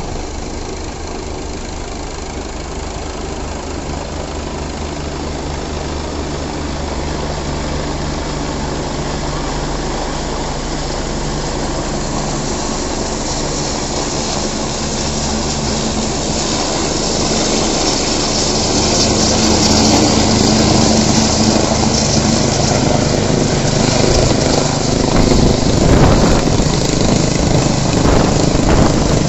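Rescue helicopter hovering low overhead, its rotor and turbines making a steady drone that grows louder over the first twenty seconds as it comes closer.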